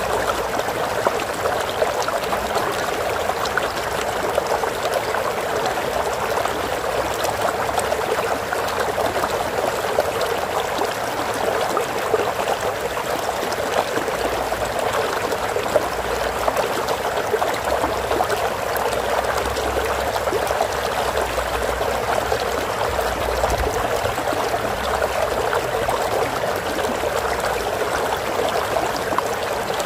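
Water of a stream running steadily, a constant trickling rush.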